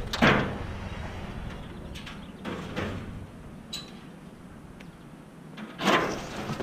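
Light metal shelving units rattling and scraping as they are carried and set down, in a few separate clatters with the loudest one near the end.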